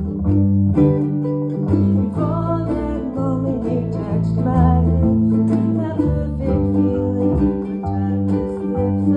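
Music: an instrumental guitar passage over long held bass notes, with no words sung.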